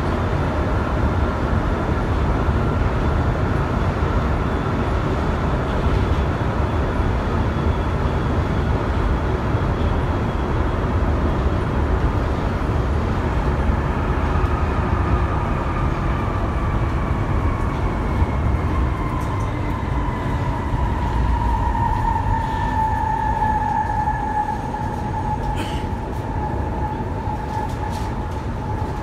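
Cabin running noise of a Sapporo Namboku Line 5000-series rubber-tyred subway train: a steady low rumble with an electric motor whine. In the second half the whine strengthens and falls in pitch as the train slows for the next station.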